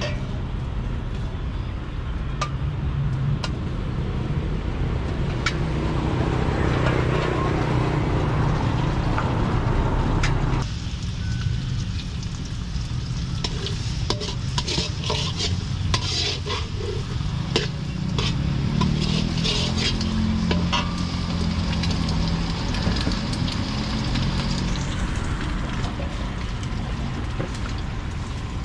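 Food frying and sizzling in a pan with utensils stirring and clinking, over a steady low rumble. About ten seconds in the sound changes abruptly, and quick clinks and spatters follow for several seconds.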